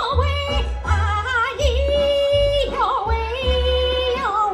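A woman singing a Chinese song into a microphone, holding long notes broken by quick ornamental turns, over backing music with a steady low beat.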